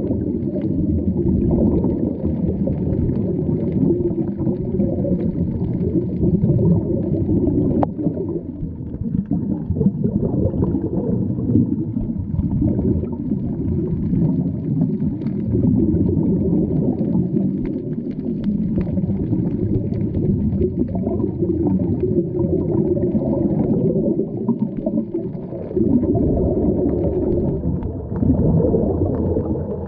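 Muffled underwater rumble and gurgle of scuba divers' regulators and exhaled bubbles, swelling with each breath every few seconds.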